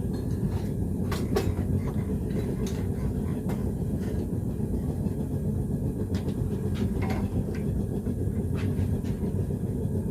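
Propane gas forge running with a steady low rumble, broken by a few short, light clicks and knocks of work being handled.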